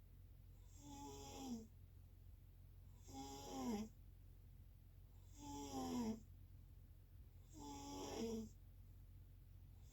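Snoring: four snores about two seconds apart, each swelling over roughly a second and ending with a pitched tone that drops before cutting off.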